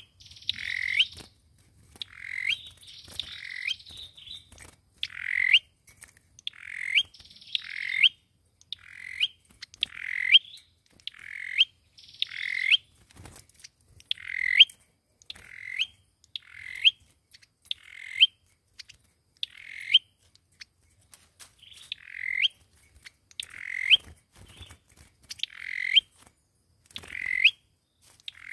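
Sâu dừa bird calling over and over, about one short call a second, each note ending in a sharp upward sweep. The first few seconds hold harsher, rougher calls.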